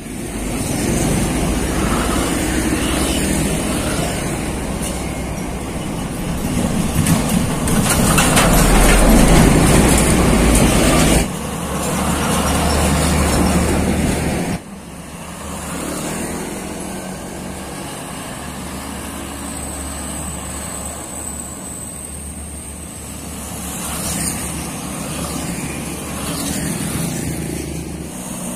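Road traffic passing close by: a large truck's engine and tyres are loudest over the first ten seconds or so, then lighter cars and motorbikes go by. The level drops suddenly about eleven seconds in and again near fifteen.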